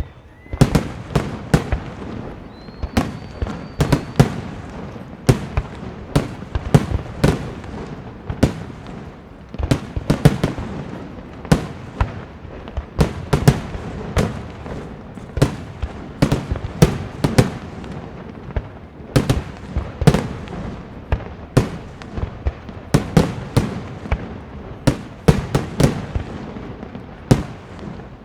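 Aerial fireworks display: shells bursting in quick succession, about two sharp reports a second, with crackling between them.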